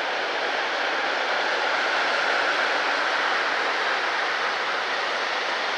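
Freight train rolling past, a steady rushing noise of steel wheels on the rails.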